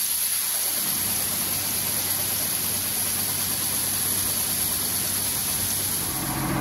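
Soybeans pouring in a steady stream from a grain cart's unloading auger into a hopper-bottom semi trailer, a continuous even rushing hiss.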